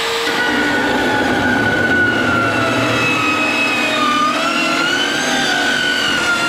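A compact circular saw with a toothed blade cutting through the aluminum seat rail of a boat hull. It makes a loud, continuous whine that wavers in pitch as the blade bites into the metal.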